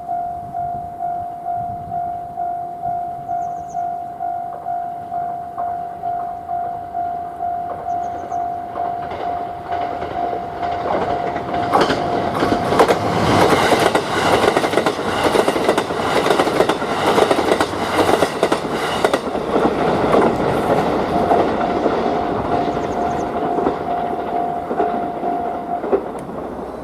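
Japanese railway level-crossing warning bell clanging in a steady rhythm, stopping about a second before the end. About a third of the way in a train passes through the crossing with loud clattering of wheels over the rail joints, which fades out after about ten seconds.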